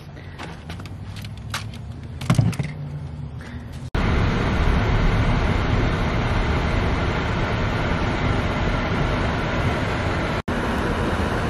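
A few clicks and knocks over a low hum, then an abrupt switch about four seconds in to steady, loud road and engine noise of a car being driven, heard from inside the car.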